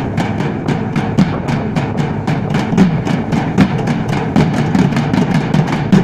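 A group of drummers beating large stainless-steel-shelled drums with sticks in a fast, driving rhythm. Several sharp stick strokes a second ride over heavier low beats.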